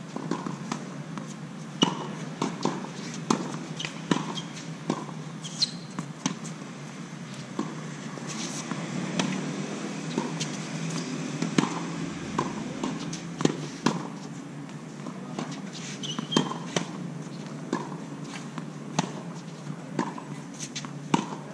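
Tennis balls struck by rackets and bouncing on a hard court during a rally: a steady run of sharp pops, roughly one every second or less.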